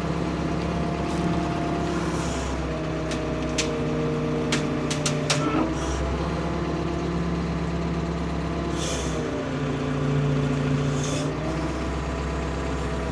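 Ford P-42 excavator's diesel engine running under changing hydraulic load, its pitch dropping and rising a few times, with short hissing bursts. A quick series of sharp cracks comes about four seconds in, as branches are torn from a dead spruce.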